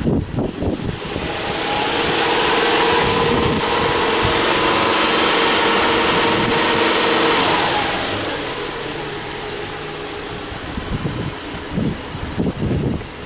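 Subaru Legacy B4 2.5i's 2.5-litre EJ25 flat-four engine revved up from idle, held at raised revs for several seconds, then let fall back to idle.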